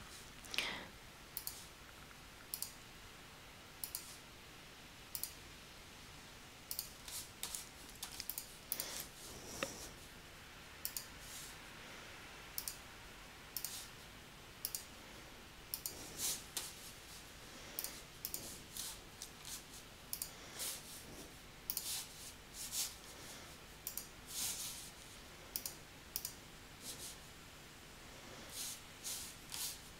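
Irregular sharp clicks of a computer mouse working a drawing program, some coming in quick pairs and clusters.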